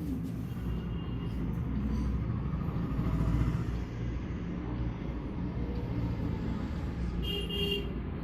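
A steady low rumble throughout, with a short high-pitched tone near the end.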